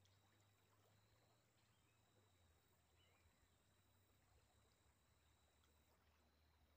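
Near silence, with only a faint steady high tone and a low hum in the background.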